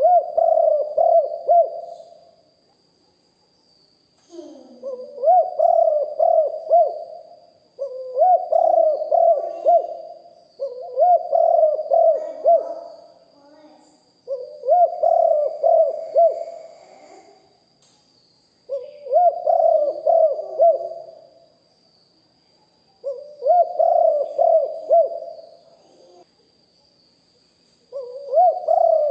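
Spotted dove cooing: about seven loud phrases, each a quick run of several low coos lasting two to three seconds, repeated with gaps of a second or two.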